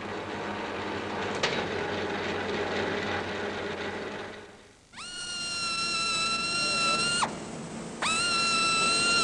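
A centre lathe running with a steady mechanical rumble, which stops about four and a half seconds in. Then a hose-fed pneumatic drill spins up to a high, steady whine twice, each run about two seconds, drilling into an aluminium aircraft fuselage.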